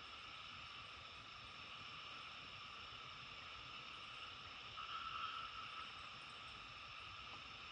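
Faint, steady chorus of many calling animals, heard as a continuous high-pitched drone in several bands, which swells briefly about five seconds in.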